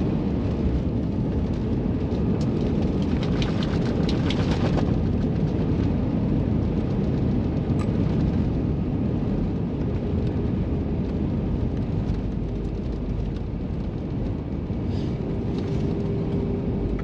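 Airbus A320-232 cabin noise on the landing rollout: a steady low rumble from the engines and wheels, with a run of rattling clicks about three seconds in.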